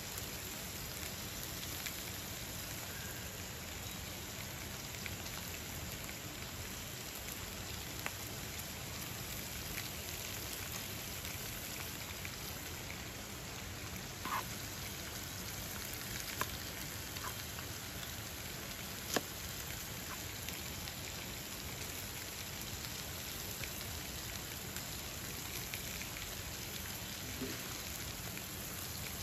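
Steady rain-like hiss from the flowing river and meat frying in a pan on a portable gas stove, with a few sharp taps of a knife on a plastic cutting board, the loudest about two-thirds of the way through.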